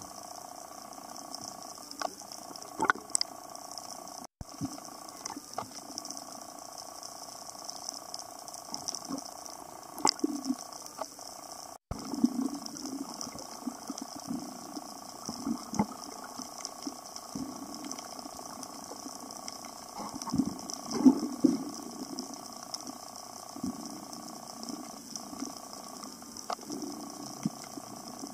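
Underwater sound around a descending freediver: a steady hum of fixed tones, scattered sharp clicks, and low bubbling gurgles, loudest about three-quarters of the way through.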